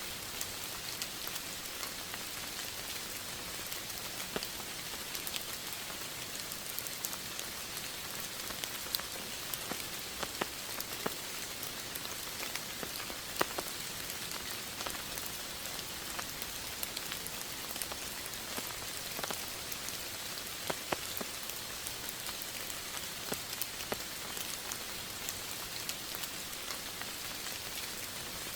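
Steady rain falling, an even hiss with many separate drops striking close by.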